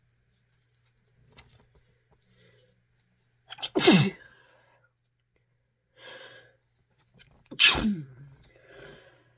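A person sneezing twice, about four seconds apart, each sneeze loud and sudden with a falling pitch, with quieter breaths around them.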